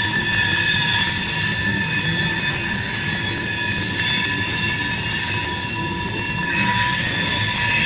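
CSX tank car train rolling past, its wheels squealing in several steady high-pitched tones over a low rumble of the cars. About six and a half seconds in, a harsher screech joins the squeal.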